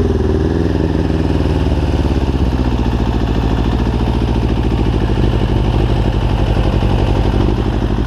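Suzuki GSX-RF 600 motorcycle engine in an off-road buggy, running at idle. Its pitch wavers for the first two seconds or so, then settles into a steady, pulsing idle.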